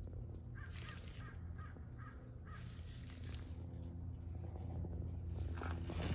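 A crow cawing, a quick run of four or five harsh caws about half a second apart, over a steady low hum.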